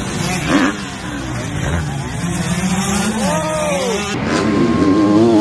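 Motocross bike engines revving, their pitch swinging up and down as the bikes take the jumps. A little after four seconds the audio cuts to another bike revving hard.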